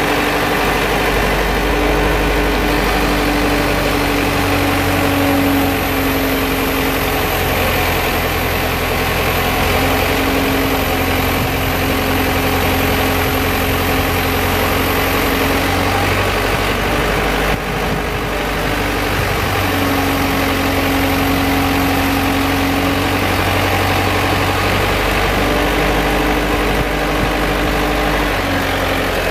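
Lay-Mor 8C SweepMaster sweeper's Cummins diesel engine running steadily, its hum shifting slightly in pitch now and then, with a faint high whine for a stretch in the middle.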